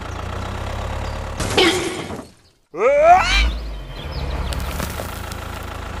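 Tractor engine sound effect idling with a steady low putter. A short sharp sound comes about one and a half seconds in, then a brief cut to silence. The engine comes back with a rising, wavering whine over a low surge and settles back to idling.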